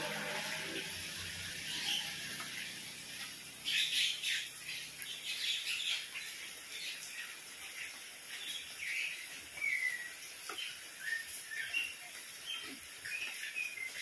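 Steady rain hissing down on paving and garden leaves, with small birds chirping repeatedly from about four seconds in: short, high chirps and quick whistled glides.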